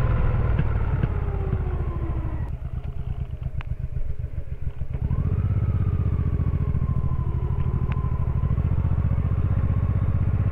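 Honda Shadow VT1100C's V-twin engine on the move. For the first couple of seconds its pitch falls as it slows, then it runs slow with separate firing pulses. About five seconds in it pulls again, rising in pitch and then holding a steady pace, with a few light clicks over it.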